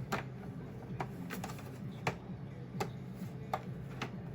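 A series of sharp, separate clicks and taps, about one every half second to second, over a low steady hum.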